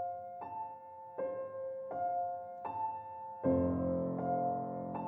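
Slow, sad solo piano music: single notes picked out in a steady pattern, with lower chords coming in about three and a half seconds in.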